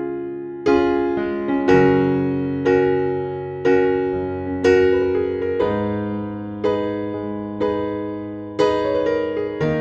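Background music on electric piano: gentle chords struck about once a second, each ringing and fading away before the next.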